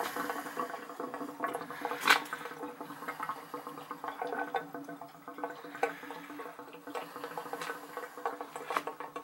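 Water running steadily as an old gas water heater drains through a hose from its drain valve, with a few sharp clicks or knocks, the loudest about two seconds in.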